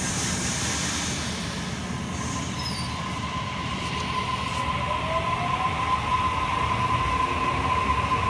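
A Sydney Trains double-deck electric train moving off along the platform: a steady rumble with a steady high whine over it, and a second tone that rises in pitch about three to five seconds in as the train gathers speed.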